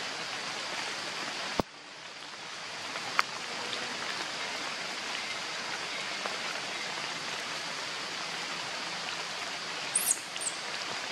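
Steady hiss of rain in the forest. There is a sharp click about a second and a half in, after which the hiss drops and slowly returns, and there are two short, high, falling chirps near the end.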